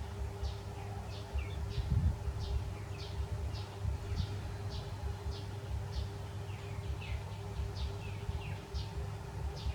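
Bird chirping: short, high, falling chirps repeating about twice a second, over a low rumbling background.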